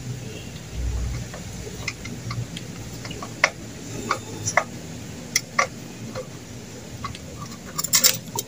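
Screwdriver working the screws of a brush cutter's carburetor as it is taken apart to clear a clog: irregular small metallic clicks and ticks, with a quick cluster of clicks near the end.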